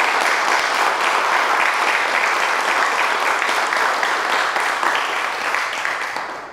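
Audience applauding, steady and sustained, dying away near the end.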